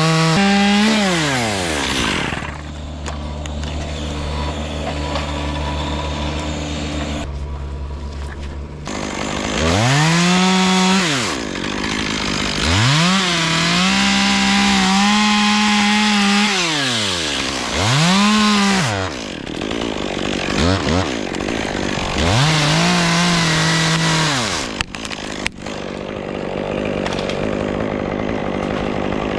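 Chainsaw idling and then revved up to full speed about four times, holding high between rises and falls of pitch, as it cuts wood.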